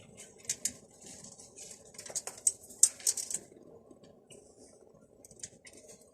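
Birds kept indoors moving about, giving quick clicks and scratchy rustles in short clusters, the busiest stretch from about two to three and a half seconds in.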